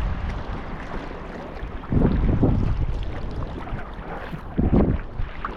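Wind buffeting the microphone over water sounds from a sea kayak under way, with two louder rushes, one about two seconds in and another short one past four and a half seconds.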